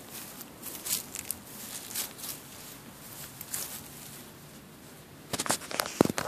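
Dry wood-chip mulch crackling and rustling as it is disturbed, in scattered small crackles with a denser run of sharper ones near the end.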